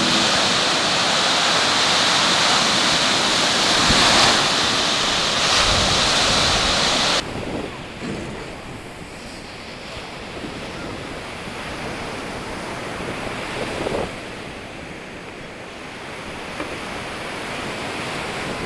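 Wind-driven surf breaking on a sandy lake beach. For the first seven seconds it is louder, with wind buffeting the microphone, and then it cuts off suddenly to a quieter, steady wash of breaking waves.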